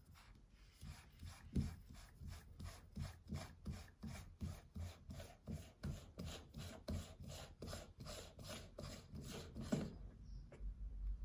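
The upper burr carrier of a G-64 single-dose coffee grinder being unscrewed by hand: a faint, rhythmic rasping of its threads, about three strokes a second, stopping near the end.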